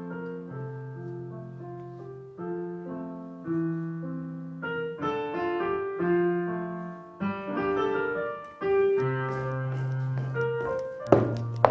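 Korg digital piano playing a solo piano tune, a melody over held bass notes and chords. A single sharp knock sounds near the end.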